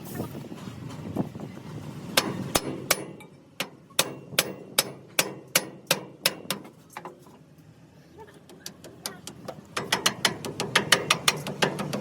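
Hammer tapping repeatedly in runs of sharp strikes, about three a second, with a quieter pause in the middle and a faster run of taps near the end.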